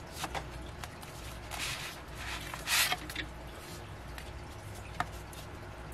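Paper and plastic rustling with light clicks and taps as K-pop album contents such as photocards and inserts are handled. The loudest rustle comes a little under halfway through.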